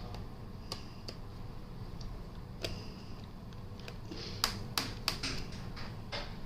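Scattered small clicks and taps of tools on a Lenovo ThinkPad X1 Carbon Gen10's bottom panel as it is being opened, with several quick clicks close together near the end, over a steady low hum.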